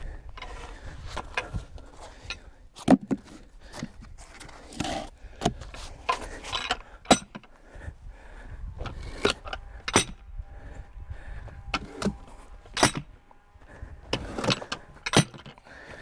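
Irregular knocks, clanks and scrapes of a white pine log being shifted on a portable sawmill's bunks with a long-handled log hook, while the log is set parallel to the mill rails before sawing. A few of the knocks are sharp and loud.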